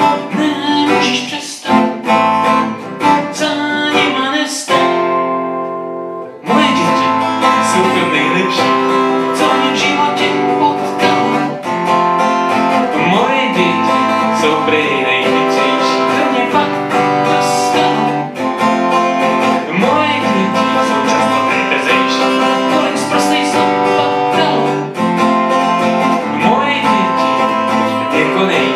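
Acoustic guitar strummed in a song, with a man singing along. About four and a half seconds in, the strumming pauses on a single chord left ringing, then starts again about two seconds later and carries on.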